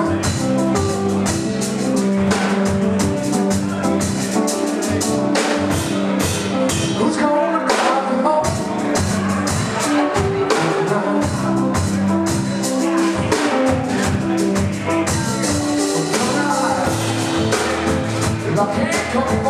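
Live band playing an instrumental stretch of a song, with a drum kit keeping a steady beat under sustained bass and keyboard-like notes.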